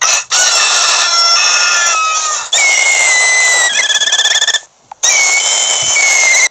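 Rooster crowing sound effect, loud and harsh, with a short break about two-thirds of the way through.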